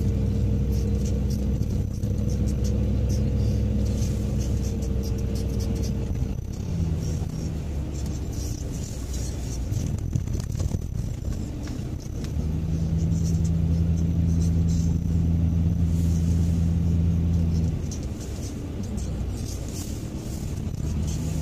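Car engine and tyre noise heard from inside the cabin while driving in city traffic. A steady low engine drone drops away about six seconds in, returns for about five seconds in the middle, and comes back near the end.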